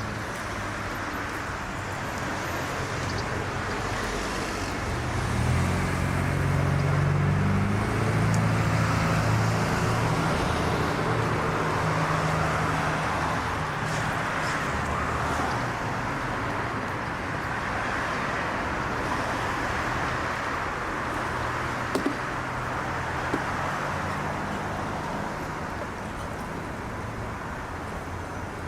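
Road traffic: a steady hum of passing cars, with a heavy vehicle's low engine drone swelling and fading, then rising again more faintly later on. Two brief clicks come about three-quarters of the way through.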